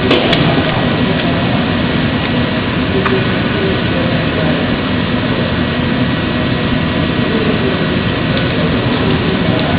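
Steady, loud mechanical hum and hiss of workshop machinery, with a thin steady high tone above it and a sharp click right at the start.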